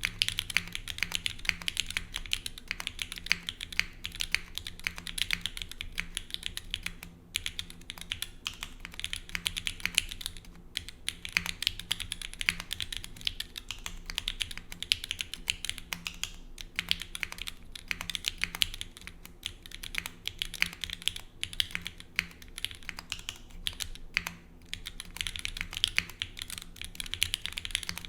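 Continuous fast typing on a grommet-mounted mechanical keyboard with an aluminium plate, no foam and lubed, filmed Gateron Black KS3 linear switches under GMK keycaps: a dense run of keystroke clacks with only a few brief pauses.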